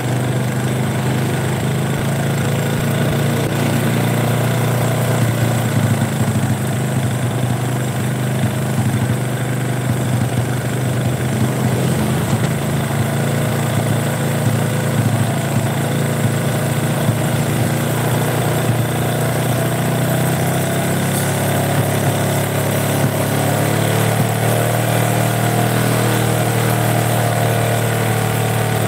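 Honda Supra 125's air-cooled single-cylinder four-stroke engine idling steadily as it warms up. This engine stalls once it gets a little hot.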